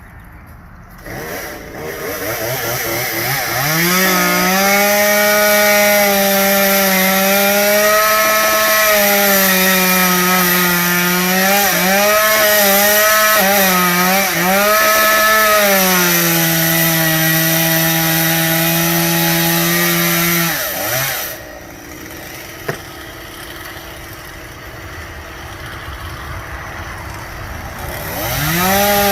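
Two-stroke chainsaw started and revved up, then cutting through a limb, its pitch dipping repeatedly as the chain loads in the wood. After about twenty seconds it drops back to a quieter idle, then revs up again near the end.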